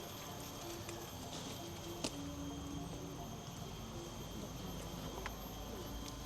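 Insects calling in a forest: a steady high drone. A single sharp click comes about two seconds in.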